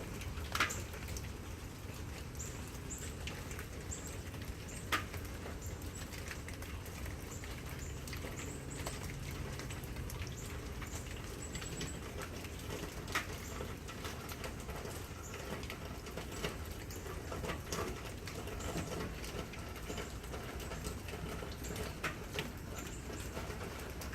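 Light rain during a lull in a thunderstorm: a steady low hiss of rain with scattered single raindrops dripping and pattering, a few of them sharper and louder than the rest.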